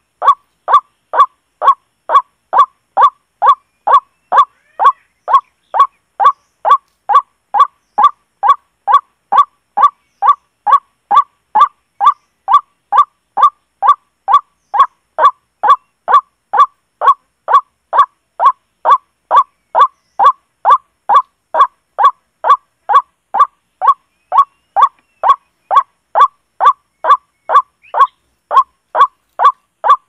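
White-breasted waterhen call played on a loop from an electronic bird caller as a trapping lure: one short, harsh, pitched call repeated at an even pace of about two a second, each call the same loudness.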